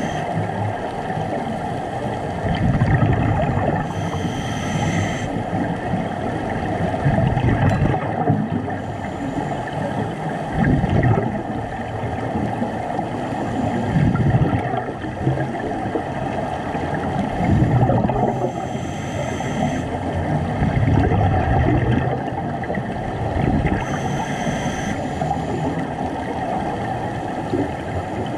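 Underwater sound of scuba divers breathing through regulators: exhaled bubbles bubbling and rumbling, swelling about every three to four seconds, with a few brief hisses of inhalation.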